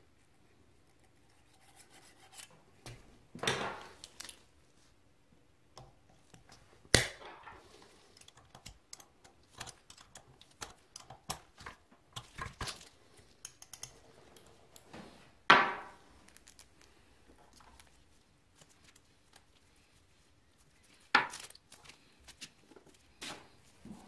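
Metal hand tools clicking and clinking on the valve adjuster of a Honda ATC 90's aluminium cylinder head as the tappet clearance is set with a feeler gauge and locking pliers. Four louder clanks with a short ring stand out among the small ticks.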